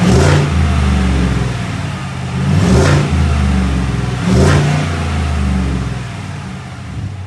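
Chevrolet Silverado V8 through a new Stainless Works cat-back true dual exhaust, blipped three times from idle, each rev rising and falling, then settling back to idle near the end. It is running on all eight cylinders, its spark plug wires reconnected.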